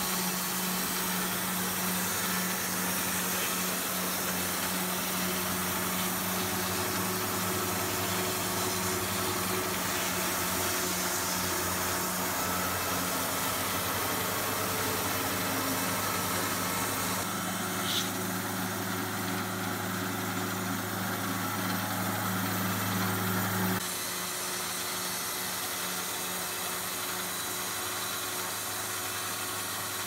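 Wood-Mizer LT40 band sawmill running, a steady low engine hum under the hiss of the band blade cutting along a squared log. A little past halfway the hiss eases, with a brief tick, and about three-quarters through the low hum drops and the whole sound gets a little quieter.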